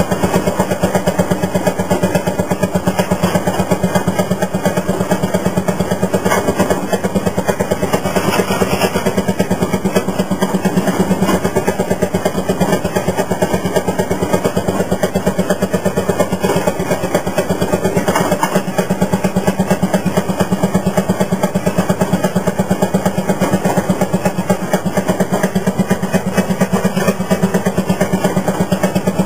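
Fairmont M-19 railroad motorcar's single-cylinder two-stroke engine running steadily while the car rolls along the track, a fast, even putt-putt of exhaust beats.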